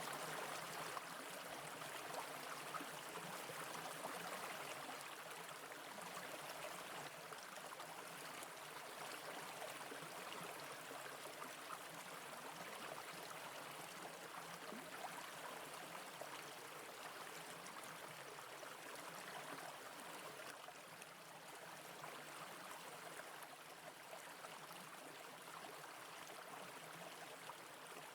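Brook water running over stones: a steady rushing and trickling that slowly grows quieter.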